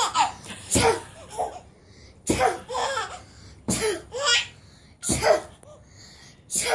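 A girl's mock 'achoo' sneezes, about five of them roughly a second and a half apart, each followed by a baby's laughter.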